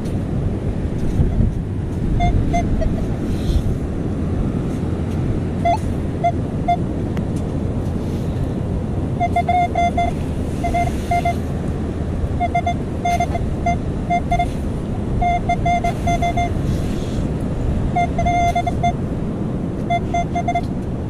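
Metal detector beeping on a buried target read at about four inches deep: short beeps at one steady mid pitch, in clusters of two to five. They begin about two seconds in and come more often from about nine seconds on, over a steady low rumble of wind and surf.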